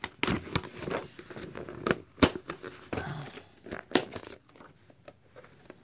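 Plastic and cardboard packaging of a DVD box set crinkling, with sharp snaps and clicks, as its back cover is pulled off by hand; the handling dies down after about four and a half seconds.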